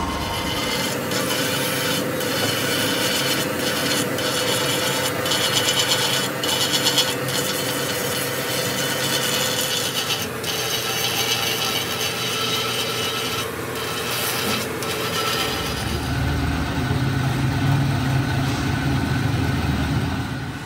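A hand file rasping and rubbing over metal in uneven strokes. A low hum joins about three-quarters of the way through.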